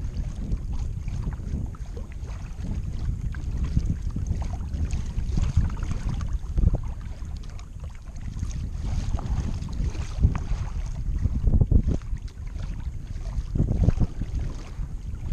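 Wind buffeting the camera microphone as a constant uneven low rumble, with louder gusts now and then, over the water sounds of a kayak being paddled.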